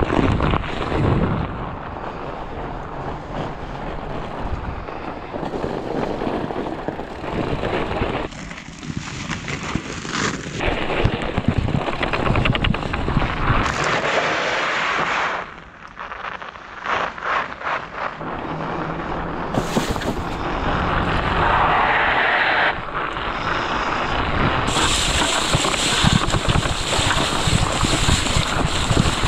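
Wind rushing over the microphone and a fat bike's tyres rolling over snow and lake ice. The noise changes abruptly several times.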